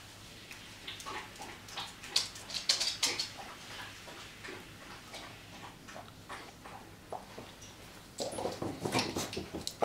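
Dogs moving about on a wooden floor, claws clicking and pattering, densest about two to three seconds in. From about eight seconds in it gets louder, with scuffling paws and dog whimpering sounds as a puppy joins in.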